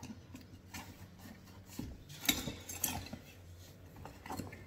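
Tools and supplies clinking and knocking as they are rummaged through and handled in a tool bag: a string of scattered clicks, the loudest a little past two seconds in.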